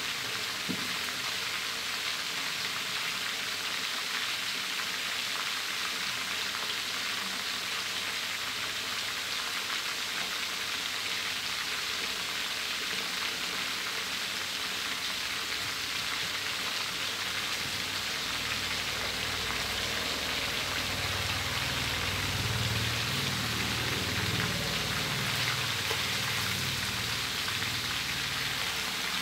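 Fermented fish pieces deep-frying in a wok of hot oil: a steady crackling sizzle of bubbling oil. A low rumble joins in underneath past the middle.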